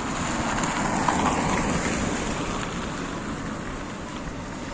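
Tatra T3 tram running along the rails: a steady rumbling noise that swells slightly about a second in, then eases off.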